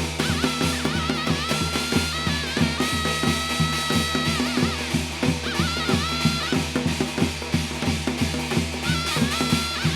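Korean shamanic ritual (gut) music: a fast, steady drumbeat with a wavering melody line with vibrato played over it.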